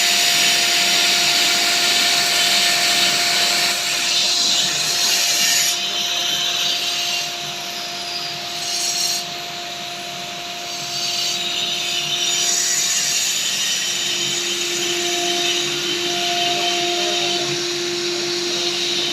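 CNC router spindle cutting stone: a steady high whine over a loud, hissing grind of the cutter. The grinding eases off about six seconds in and builds back up about twelve seconds in.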